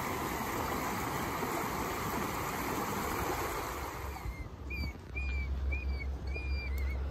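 Rushing water of a small rocky stream for about four seconds. Then a bluetick coonhound whines: about five short, high-pitched whines, some slightly rising and falling, over a low rumble.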